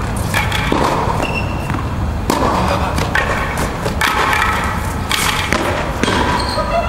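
Tennis ball struck by a racquet in a rally: several sharp hits a second or more apart, with brief squeaks from shoes on the court over a steady low rumble.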